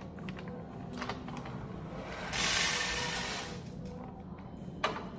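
Coffee beans poured from a bag into a grinder hopper: a rush of sound about two seconds in that lasts about a second, with a few light knocks of the bag against the hopper.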